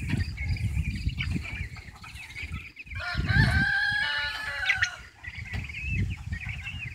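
A flock of young turkey poults calling, with many short high peeps and chirps throughout. One longer, drawn-out call comes about three seconds in and lasts nearly two seconds, over an uneven low rumble.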